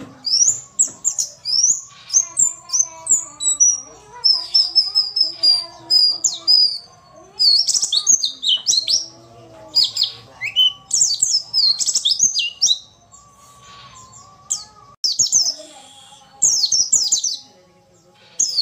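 Female white-eye (pleci) chirping in rapid clusters of high, sharp, falling notes, with brief pauses between clusters and a quieter stretch about two-thirds of the way through. It is the call used as a lure to set male white-eyes singing.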